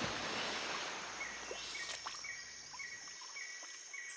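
Boots wading and water sloshing in a shallow muddy pool, fading after the first couple of seconds. From about a second in, a faint high chirp repeats about three times a second.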